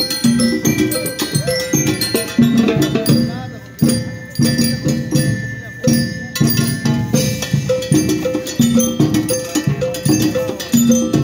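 School rhythm band playing a march: drums keep a steady beat while bell lyres play the melody in repeated ringing notes. The band eases off briefly about three and a half seconds in, then comes back at full strength.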